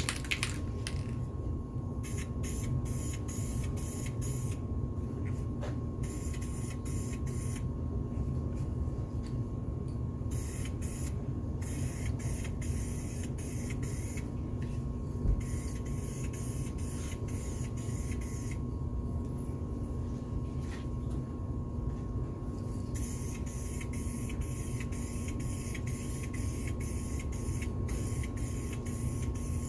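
Aerosol can of Duplicolor wheel paint spraying a wheel in a light coat: a hiss in repeated passes of a few seconds each, with short pauses between. A steady low rumble with a faint steady tone runs underneath.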